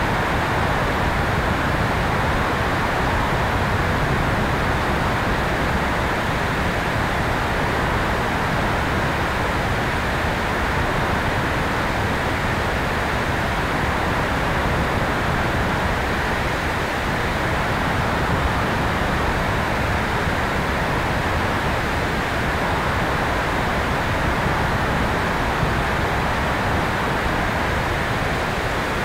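Steady rushing wind noise from airflow over the onboard camera's microphone on an electric RC airplane in flight.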